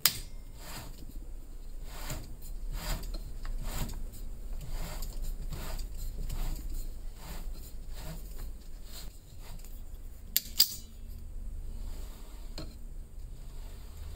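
Cue lathe running slowly with a low motor hum while locking pliers clamped on the threaded joint pin hold it, giving rhythmic metallic clicks as the pin is screwed into the cue. A sharp snap comes at the start and a louder double click about ten seconds in.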